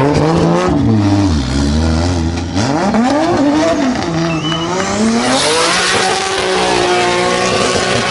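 Drift car engine revving hard, its pitch sweeping up and down again and again. From about five seconds in the engine is held high while the tyres squeal and spin in a smoky drift.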